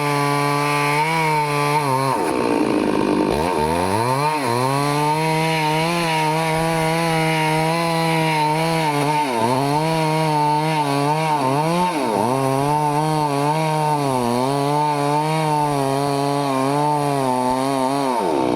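Stihl chainsaw running at high revs while cutting teak, its engine note sagging under load and recovering. About two seconds in it drops sharply almost to idle, then revs back up. There are shorter dips later.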